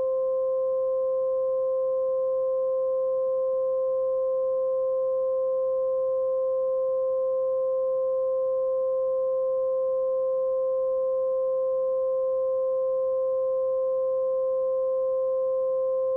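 Steady synthesizer tone: two notes an octave apart held on the Synth One app with soft triangle-wave oscillators, holding one unchanging pitch. It is a synthesized imitation of the Federal Signal 2001-130 siren's alert tone.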